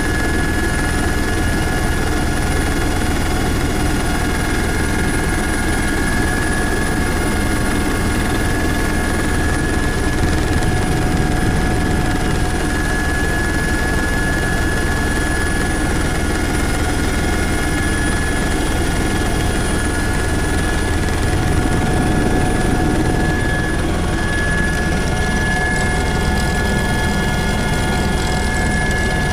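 Helicopter in flight heard from inside its cabin: steady engine and rotor noise with a constant high whine over it.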